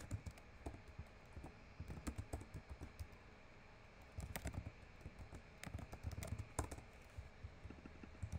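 Typing on a computer keyboard: quick runs of key clicks in four or five short bursts with brief pauses between them.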